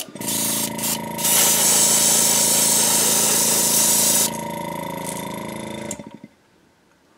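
Airbrush spraying paint: a loud hiss of air and paint from about one to four seconds in, then a softer hiss. Under it the steady hum of a small airbrush compressor, which cuts off about six seconds in.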